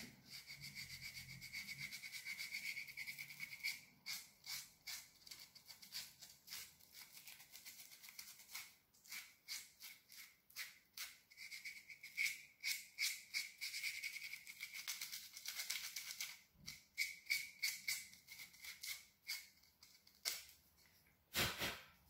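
Sandpaper rubbed back and forth over a carved wooden acorn, a run of quick scratchy strokes, a few per second, with brief pauses. A short louder rush of noise comes near the end.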